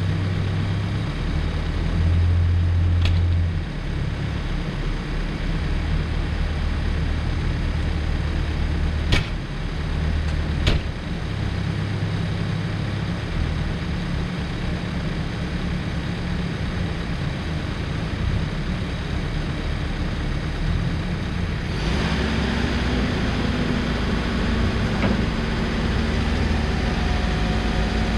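Case 590 Super N backhoe loader's diesel engine running while its hydraulic functions are worked, the engine note shifting as each movement loads it. There are a few sharp metallic clunks about 3, 9 and 11 seconds in, and the engine note rises and stays higher from about 22 seconds in.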